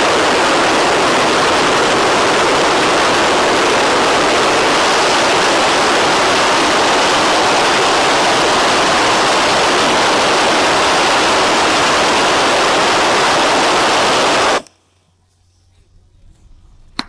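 A jet engine running with its afterburner lit on a test stand: a loud, steady rush of noise spread across all pitches. It cuts off abruptly a couple of seconds before the end, leaving only faint background.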